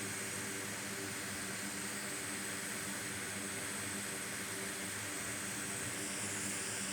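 Steady background hiss with a faint low hum underneath and no distinct events: room and bench noise between remarks.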